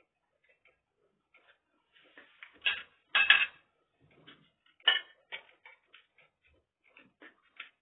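Metal spoons clinking against ceramic plates and bowls as food is served: a few sharp clinks, the loudest about three seconds in and another near five seconds, with faint scattered ticks between.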